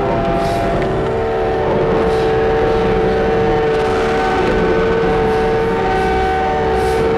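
A steady electronic drone of several held tones over a hissing bed. A lower tone swells up about a second in and holds to the end.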